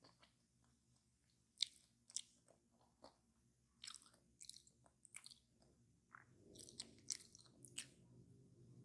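Close-up crunching and chewing of a crispy fried fast-food pie crust: irregular sharp crackles, sparse at first and coming thicker and faster in the last few seconds.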